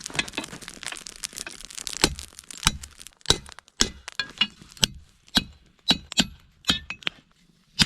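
A hammer striking heated leaf spring steel, forging a knife blade: about a dozen sharp metallic strikes, roughly two a second, each with a brief ring. The first two seconds hold a dense crackle before the strikes begin.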